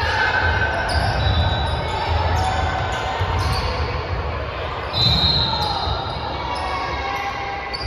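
Basketball game sound in a large gym: a basketball bouncing on the hardwood court in repeated low thuds, with short high squeaks and voices of players and spectators echoing in the hall.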